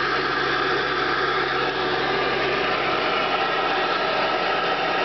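Ford 7.3 L Powerstroke V8 turbodiesel idling steadily while it warms up after a cold start at 24 °F.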